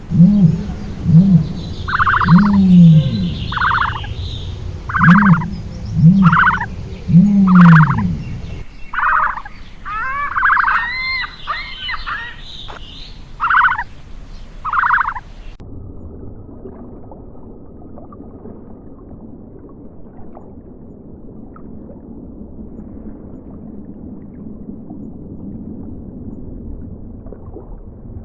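Animal calls: loud, short, pitched calls repeating about once a second, with higher chirping mixed in partway through. They stop about halfway, and a steady low noise follows.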